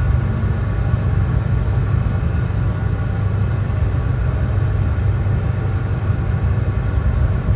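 Brown noise: a steady, deep rumbling hiss with its weight in the lows, unchanging throughout.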